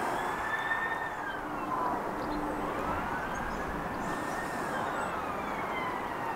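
Emergency vehicle siren wailing, its pitch rising and falling slowly, twice over, above a steady background hiss.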